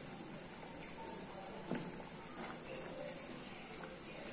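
Tamarind gravy with ash gourd pieces simmering in a clay pot, a faint steady bubbling. A single sharp click comes a little under two seconds in.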